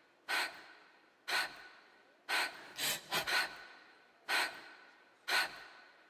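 A person's sharp, gasping in-breaths, about one a second, each fading quickly, with three coming close together about two to three seconds in.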